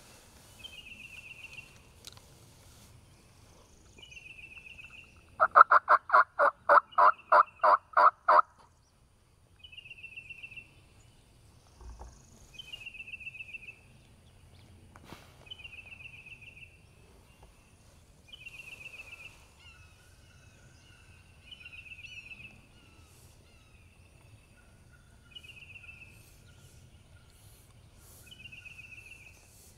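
A run of about ten loud turkey yelps over some three seconds, about five seconds in. A songbird repeats a short high trill every two to three seconds throughout.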